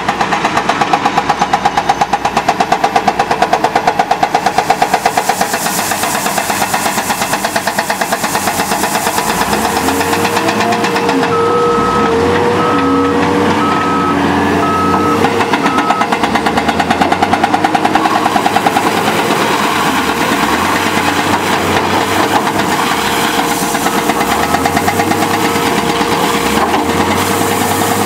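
Heavy diesel construction machines working: a John Deere 270DLC excavator and a Cat 930G wheel loader, their engines running under load. From about eleven seconds in, a reversing alarm beeps for about five seconds, a little under one beep a second, and it beeps faintly again near the end.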